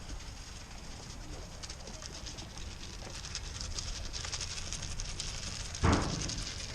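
Goats eating sweet feed, their tongues working fast at the feed: a dense run of quick, wet little clicks. A short loud rough burst comes near the end.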